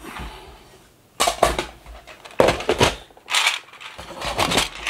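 Small plastic train pieces rattling inside a metal tin, in four short bursts of clatter about a second apart.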